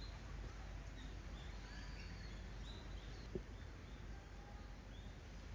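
Faint, scattered chirps of small birds over a low steady background hum, with one short click a little past the middle.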